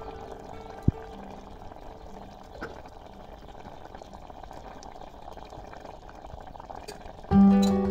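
Fish and brinjal curry boiling in a pot, a steady bubbling, with a single sharp thump about a second in. Plucked-string music comes in loudly near the end.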